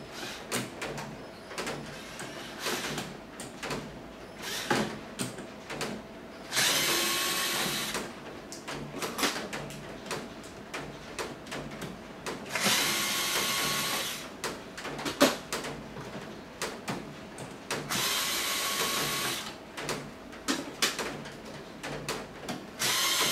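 Electric drill used as a screwdriver, running in four short bursts of about a second and a half each with a steady whine, backing out the four screws that hold the fan's motor housing. Between the bursts come handling clicks and small knocks.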